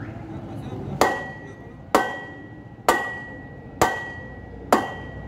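A hammer striking a steel drift rod set in the hub bearing of a spoked motorcycle rear wheel: five blows about a second apart, each with a ringing metallic ping. The blows work on the wheel's hub bearing.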